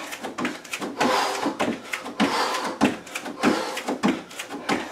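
Bare feet thumping on an aerobic step platform and the rubber floor in quick alternating hops, about two to three landings a second.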